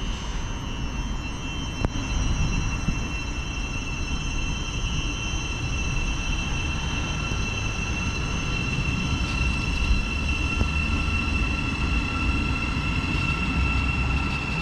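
Thameslink Class 700 (Siemens Desiro City) electric multiple unit pulling out and running slowly, its traction equipment giving a steady high whine of several tones over the low rumble of wheels on track, growing a little louder later on as the train comes nearer.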